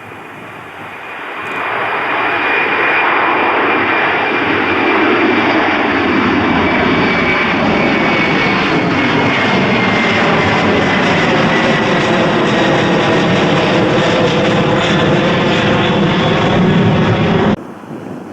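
Jet airliner passing close by, its engine noise building over the first two seconds and then running loud and steady, with a high fan whine that slowly falls in pitch. The sound cuts off suddenly near the end.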